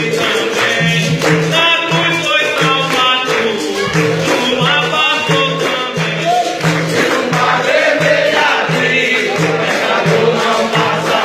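Capoeira roda music: a berimbau and a tambourine-like pandeiro keep a steady rhythm while a group sings gospel capoeira songs over it.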